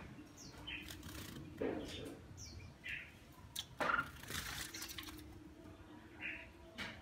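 Red-whiskered bulbul bathing in a shallow water tray in its cage: short bursts of splashing and wing-fluttering, the loudest about four seconds in, among short high chirps.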